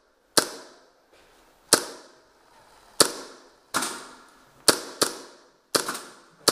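Gas blowback airsoft gun firing about eight sharp single shots at irregular intervals, each with a short fading tail. Two of the shots come close together near the end.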